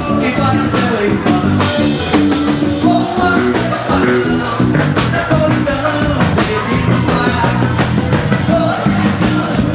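Forró band music with a steady, quick beat.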